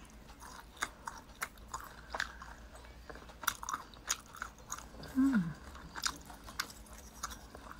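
A person chewing a mouthful of grilled meat close to the microphone, with soft, irregular wet clicks from the mouth. About five seconds in there is a short falling 'mm' hum.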